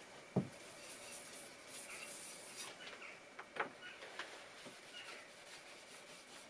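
Quiet scratchy rubbing from hand work on a vintage hand plane at a wooden workbench, with two sharp knocks, one about half a second in and one after about three and a half seconds.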